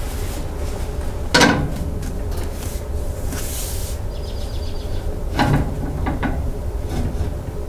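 Metal clunks and clicks from a ToughGrade RV swivel seat base as a seat is turned on it and its quarter-turn latch catches: one sharp clunk about a second and a half in, a short run of rapid ticks about four seconds in, then two more knocks a little later. A steady low hum runs underneath.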